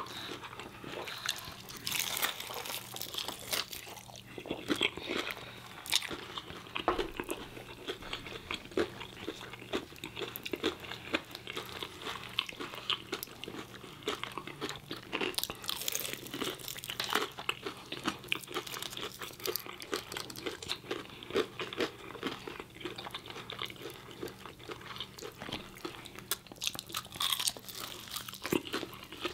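Close, crisp crunching and chewing of extra crispy fried chicken and a fried chicken sandwich: breading crackling irregularly as two people bite and chew.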